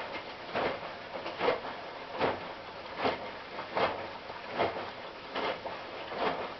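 Hotpoint NSWM 843C inverter-motor front-loading washing machine tumbling its load on a rinse: the drum turns and the wet laundry and water swish in a regular rhythm, a little faster than once a second.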